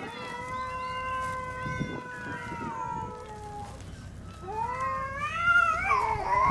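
A crowd of cats meowing for food. One long, drawn-out meow holds steady for about the first three and a half seconds, with other meows overlapping it. Then several louder meows overlap and rise in pitch near the end.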